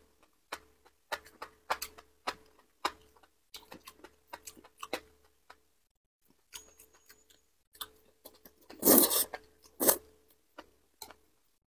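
Close-miked chewing of enoki mushrooms: an irregular run of short, wet clicks, with a louder, longer slurp about nine seconds in.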